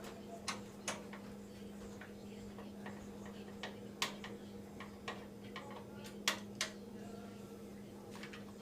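Irregular small clicks and taps of a screwdriver and screws being worked out of a computer case, the sharpest about four and six seconds in, over a steady low hum.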